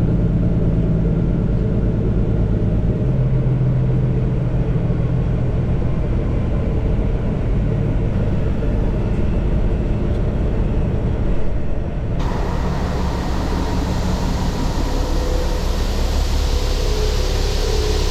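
Vehicle engine droning steadily while driving. About twelve seconds in, the sound switches abruptly to include a louder hiss of road and wind noise.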